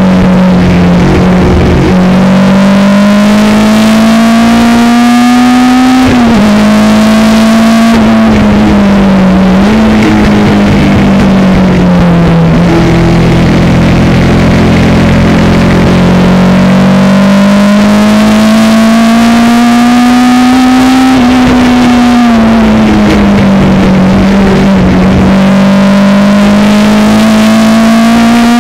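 Chevron B16 race car's BMW engine at full race pace, heard from inside the cockpit: the engine note climbs steadily under acceleration and drops sharply at gear changes several times, settling lower through a slower stretch in the middle.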